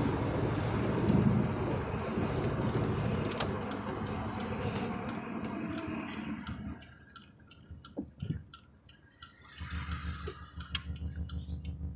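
2004 Subaru WRX running: a rumbling noise that dies away about seven seconds in, then a steady low hum with a quick regular ticking near the end. The owner is trying to capture a clunking, grinding noise whose cause is unknown.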